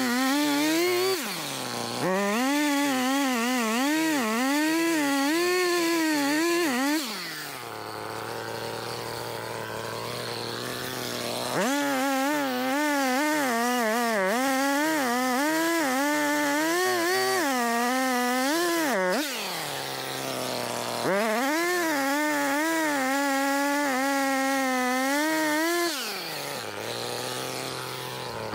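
Echo CS-280TES two-stroke top-handle chainsaw cutting through a tree limb at high revs, its pitch wavering as the chain bites into the wood. Between cuts it drops back to idle several times, then revs up again.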